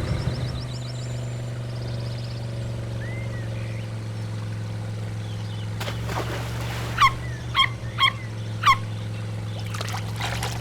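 A vehicle's motor hums steadily and low while water trickles. About seven seconds in come four short, high chirping squeaks in quick succession.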